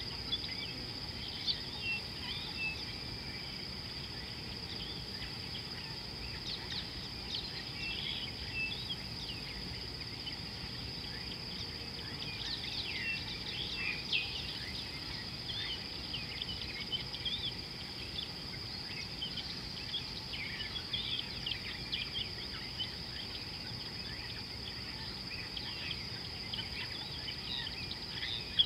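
Steady high-pitched insect drone with many short bird chirps and calls scattered throughout, over a low steady background rumble.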